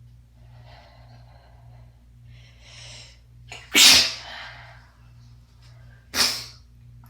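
Two stifled sneezes, the first about four seconds in and the louder of the two, the second about two seconds later. Each comes suddenly after soft, breathy build-up inhales.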